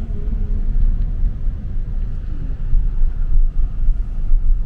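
Car driving at speed: a steady low rumble of road and wind noise.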